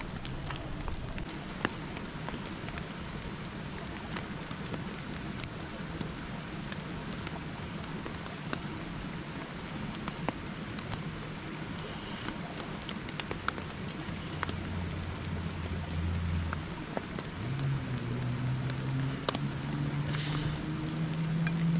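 Steady rain falling, with many scattered sharp ticks of drops. A low hum grows louder in the second half.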